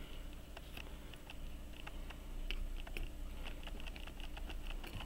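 Light, irregular small clicks and taps of a pocket watch movement being turned over and handled in a metal movement holder.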